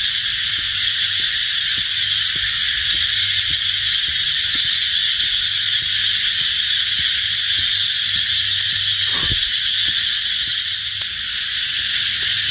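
A very loud chorus of tropical insects, a wall of noise: an unbroken, high-pitched shrilling drone that holds steady without a pause.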